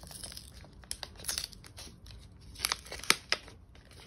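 Small kraft-paper packet crinkling and being torn open by hand, a run of sharp paper rustles and crackles, loudest about three seconds in.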